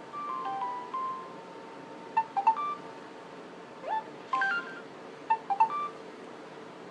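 Samsung C3300K Champ mobile phone's loudspeaker playing a series of short electronic message alert tones, previewed one after another: a brief few-note melody at the start, then quick little jingles of notes about two, four and five and a half seconds in.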